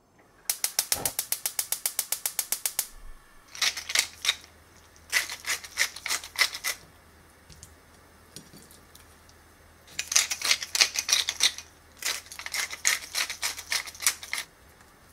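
Gas hob's spark igniter clicking rapidly, about eight clicks a second for over two seconds, as the burner is lit. Then a wooden pepper mill is twisted in four bursts of crackly grinding.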